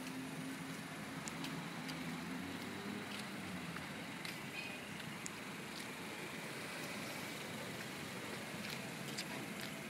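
Steady hiss of outdoor background noise with faint scattered ticks and clicks.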